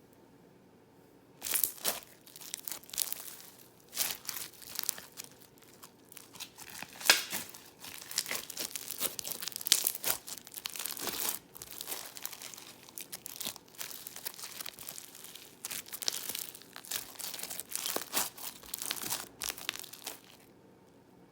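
Crunchy floam slime being worked by hand, giving off dense, irregular crackling and popping as its beads and air bubbles are squeezed and burst. It starts about a second and a half in and stops shortly before the end.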